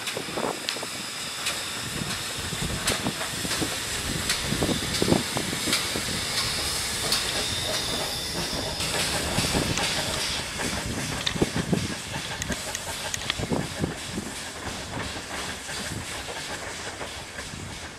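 Pannier tank steam locomotive running past slowly, with a steady hiss of steam, strongest in the middle, and irregular knocks.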